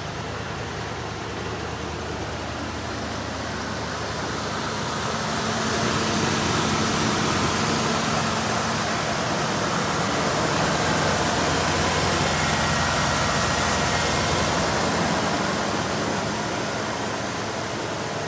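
1979 Jeep Cherokee Chief's engine running steadily, with a broad rushing noise growing louder about five seconds in and holding.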